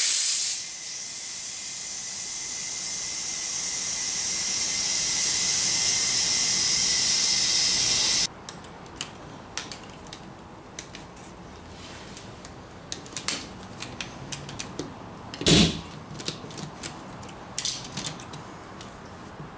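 Compressed air hissing through an air chuck into a side-by-side tire on a beadlock wheel, filling it to force the back bead out and seat it against a ratchet strap. It opens with a loud blast, grows steadily louder for about eight seconds and cuts off suddenly. Then the clicks of the ratchet strap's buckle being worked, with one loud knock about fifteen seconds in.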